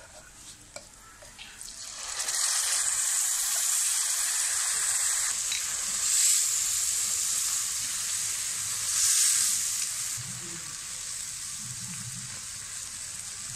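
Tamarind water (pulusu) poured into hot oil with red chillies and curry leaves in a black iron kadai, sizzling loudly from about two seconds in while a ladle stirs it. The hiss swells twice, then settles to a quieter steady simmer for the last few seconds.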